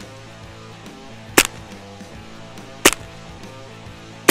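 An air gun firing a steady string of sharp shots, three about a second and a half apart, over background music.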